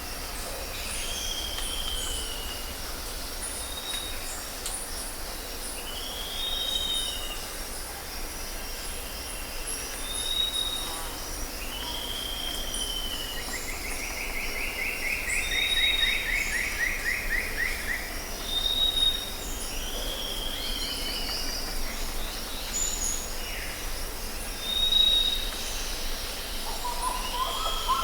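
Tropical forest ambience: a bird repeats a short whistled call that arches and falls, about every three seconds, answered by brief higher notes, with a longer buzzy trill about halfway through. A steady high chirring insect chorus and a low rumble run underneath.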